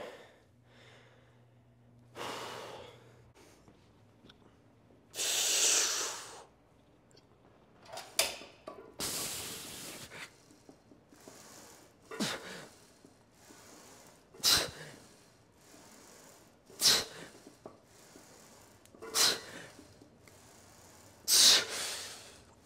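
A man's forceful breathing through the mouth while pressing a set on a Smith machine bench press: a few long deep breaths at first, then a short hard exhale about every two and a half seconds with each rep.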